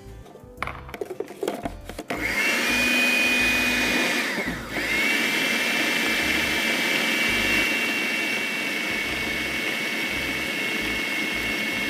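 Electric food processor running a pastry dough of flour, cold butter and water, with a steady motor noise and a high whine. It starts about two seconds in after a few clicks, stops briefly near the middle and starts again.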